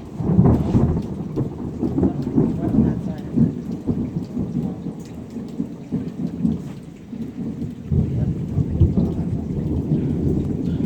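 Thunder cracks loudly right at the start and rolls on in a long, rough rumble, fading briefly and swelling again about eight seconds in, over steady rain.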